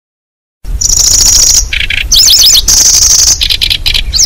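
Kecici belalang bird-lure recording: a small bird's song starting about half a second in, with high, fast insect-like reeling trills and rapid up-and-down chirping notes that alternate several times, over a low background rumble.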